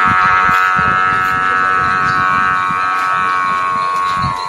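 Sumba kite hummer on a flying tura-tura kite, vibrating in the wind with a steady buzzing drone rich in overtones that fades near the end. Wind rumbles on the microphone underneath.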